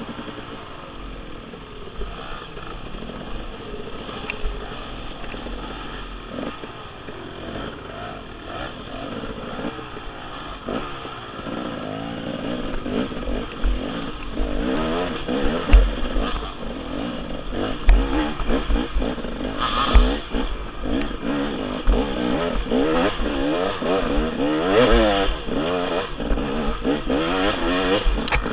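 Dirt bike engine revving up and down as it is ridden over a rough, twisting trail, the throttle blips getting louder and more frequent in the second half. Scattered thumps and clatter from the bike going over rough ground come through on the helmet-mounted microphone.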